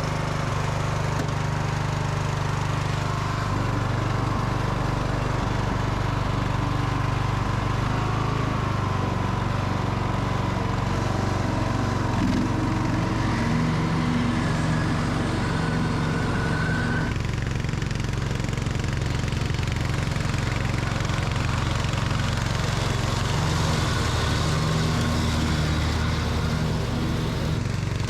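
Riding lawn mower engine running steadily as the mower is driven, its pitch shifting a little about halfway through.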